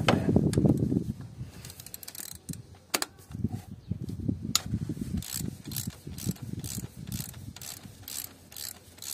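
Ratchet wrench clicking in steady runs, about three clicks a second, as it loosens the bolts holding the Bosch tandem pump to a VW 2.0 TDI engine's cylinder head. A low rumbling handling noise comes first, in the first second.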